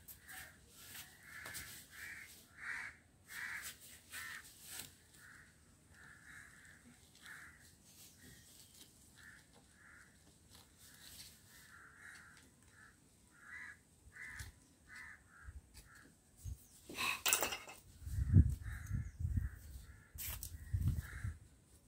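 Crows cawing over and over, many short harsh calls in quick succession. Near the end there is a brief scraping rustle, then a run of dull low bumps, the loudest sounds.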